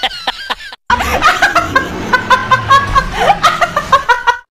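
Women laughing hard in rapid repeated bursts, starting about a second in after a brief cut.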